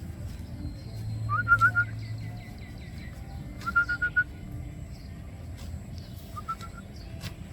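A bird calling: three short runs of quick, repeated whistled notes, the first two longer and the last brief, over a steady low rumble.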